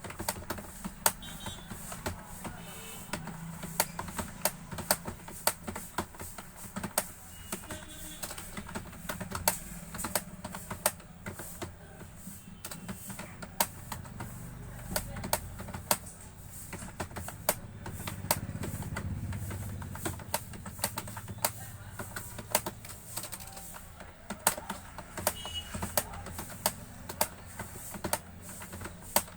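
Rapid, irregular keystrokes on a computer keyboard, several clicks a second, with a low hum underneath.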